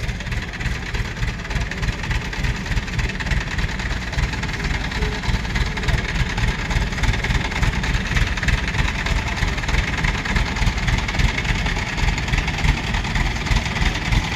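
Diesel engine of a pick-and-carry mobile crane running steadily, a low, rapid throbbing.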